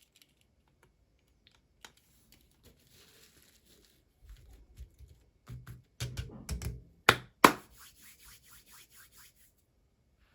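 Doll packaging being handled and opened: scattered small plastic clicks and faint rustling, a burst of knocks and handling about six seconds in, two sharp clicks, then a run of faint quick ticks, about four a second.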